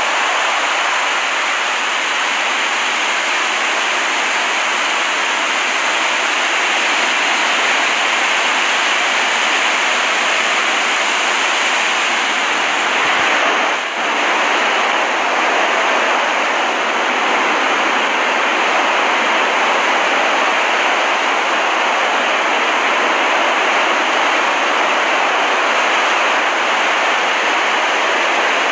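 Recorded ocean surf ambience: a steady, even wash of breaking waves, with a brief dip in level about halfway through.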